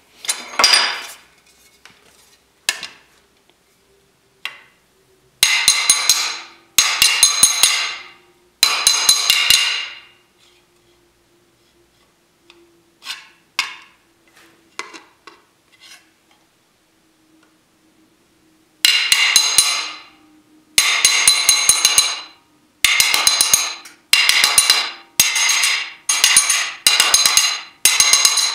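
A flat steel slapper striking the edge of an aluminum fender held over a steel dolly in a vise, in runs of quick blows about a second long with bright metallic ringing. There are three runs, then a few single knocks, then runs close together in the second half. The blows are straightening the fender's body line back onto a marked line.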